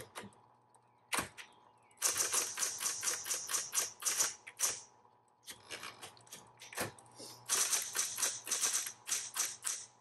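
Smith Corona Coronet Electric 10 electric typewriter being typed on: type bars striking the paper, two single keystrokes first, then quick runs of several strikes a second with a softer, sparser patch between them, over a faint steady hum from the running motor.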